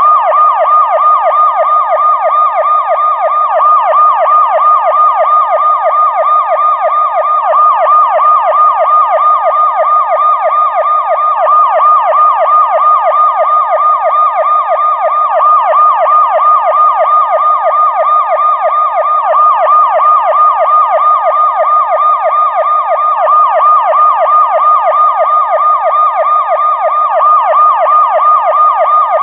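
Police car siren in a fast yelp, its pitch sweeping up and down about three times a second, loud and steady in level without rising or fading.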